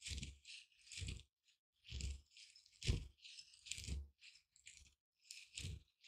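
Mortar and pestle pounding and grinding small dry seeds, about one stroke a second. Each stroke is a dull thud with a dry rattling crunch, with a short pause a little before the end.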